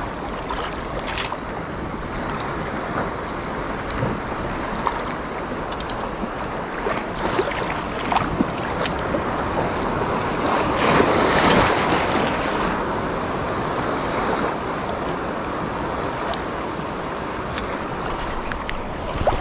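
Choppy sea waves washing and splashing at close range, with wind on the microphone; the wash swells louder for a couple of seconds about ten seconds in.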